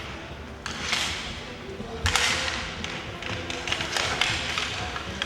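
Inline hockey play: a few sharp clacks and thuds from sticks, puck and boards, echoing in the arena, over a steady murmur of crowd voices.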